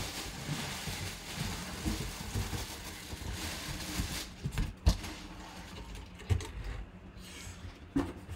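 Cardboard box being handled and opened and a plastic-bagged football helmet lifted out: a rustle of cardboard and plastic for the first few seconds, then a handful of knocks, the sharpest about five seconds in.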